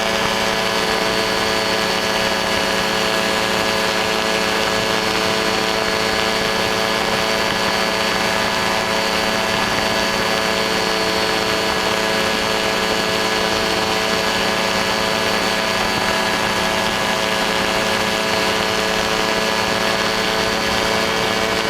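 Ultralight aircraft engine and propeller running at a steady speed, an even drone that holds its pitch without revving up or down.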